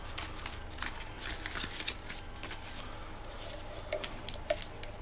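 Rustling of packaging and parts being handled, with scattered light clicks and taps.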